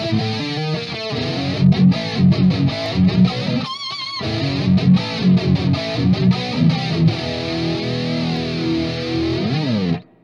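Distorted electric guitar riffing through a Crate GT-200 amp head on its overdrive channel, pushed by a Boss SD-1 pedal, with the amp's chorus swirling over it. Choppy chugging riffs with a brief break about four seconds in, then a held chord that cuts off near the end.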